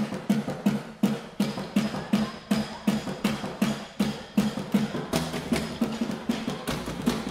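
Percussion played with wooden sticks on makeshift junk drums: a steady, even rhythm of about three to four hits a second, each hit with a ringing low note. A low bass sound joins in about five seconds in.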